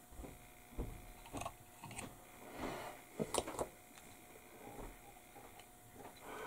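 Light scratchy strokes of a small sanding pad on the edge of a plastic model kit part, mixed with scattered clicks and taps of the plastic being handled; the sharpest clicks come in a cluster about halfway.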